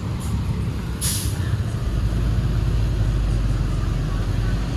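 A bus engine running close by with a loud, steady low rumble. About a second in comes a short, sharp hiss of released air from its air brakes.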